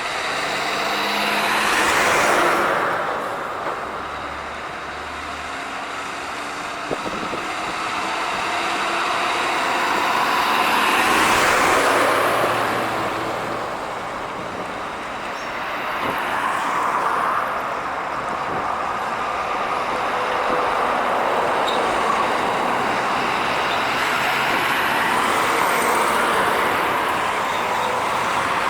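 Heavy trucks passing on a road one after another, each swelling in and fading away. The loudest passes come about 2 seconds in and about 11 seconds in.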